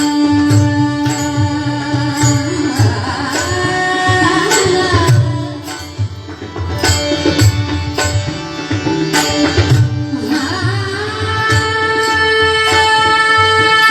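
Devotional bhajan music: a sung melody with long held notes over a hand drum, with a regular metallic beat marking time.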